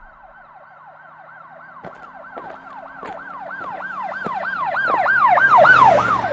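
Emergency-vehicle siren sound effect in a fast yelp, about four to five rising-and-falling sweeps a second, growing steadily louder as if approaching, over a faint low hum.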